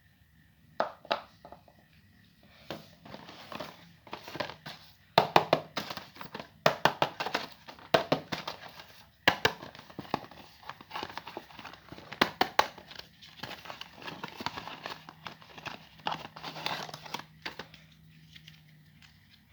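Plastic packaging crinkling and rustling as a toy is unboxed by hand, with irregular sharp clicks and handling noises.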